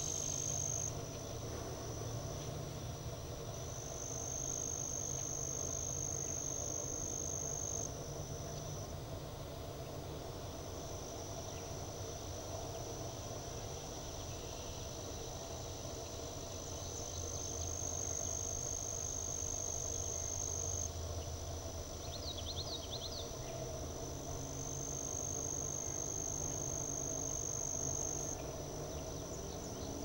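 Steady high-pitched insect chorus, a continuous thin buzz that shifts slightly up and down in pitch every few seconds, over a low background rumble. A few brief faint chirps come about two-thirds of the way through.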